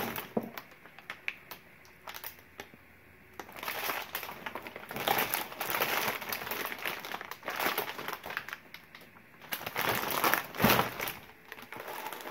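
Loose paperwork rustling and crinkling as hands rummage through a storage tote, in irregular spells that are louder around the middle and again about ten seconds in, with a sharper knock near that point.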